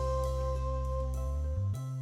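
Instrumental background music: held notes over a steady low bass, shifting to new notes near the end.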